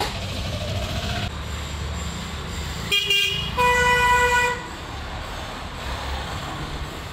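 A vehicle horn sounds twice: a short toot about three seconds in, then a longer, louder honk lasting about a second, over a steady low rumble.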